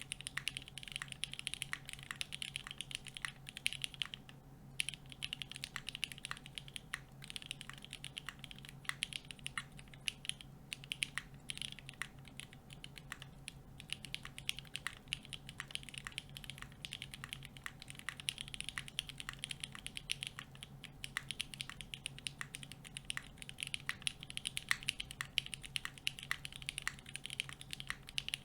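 Steady typing on a 60% custom mechanical keyboard with broken-in vintage Cherry MX Black linear switches, an aluminium full plate and GMK keycaps: a rapid run of key clacks with a couple of short pauses.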